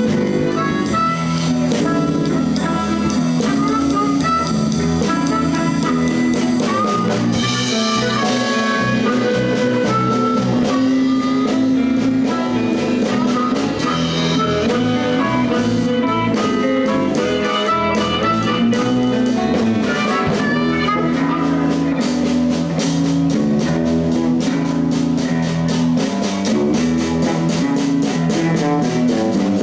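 Live blues band playing an instrumental break: electric guitar over bass and a drum kit, with the cymbals and drums getting busier in the last several seconds.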